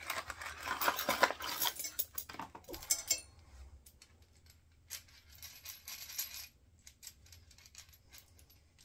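Loose stainless steel nuts and bolts clinking and rattling against each other as they are handled and sorted. The rattling is busiest in the first three seconds, thins to lighter clicks, and ends in a few scattered ticks.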